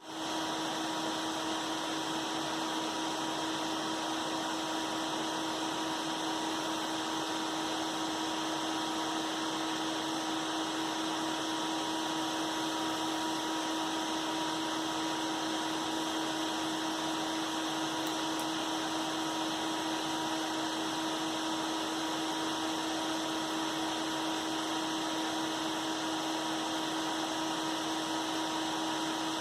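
Seven PC case fans from a Computer Upgrade King Switch 77 case, zip-tied side by side and running together: a steady whoosh of moving air with a steady hum.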